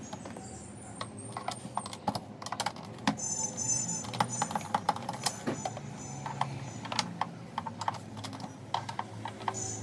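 Irregular light clicks and taps of hands and tools working on a plastic radio cassette recorder cabinet.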